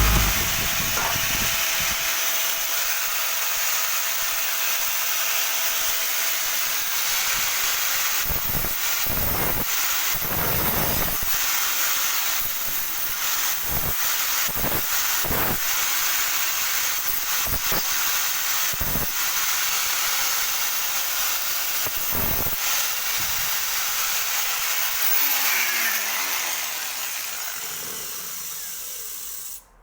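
A power tool running steadily with a hissing whine, with a few knocks along the way, then spinning down with falling pitch near the end before the sound cuts off suddenly.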